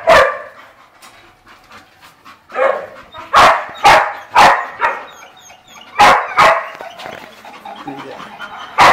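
Dog barking in loud, sharp runs: a bark at the start, about five quick barks from two and a half to five seconds in, two more around six seconds, and one at the end.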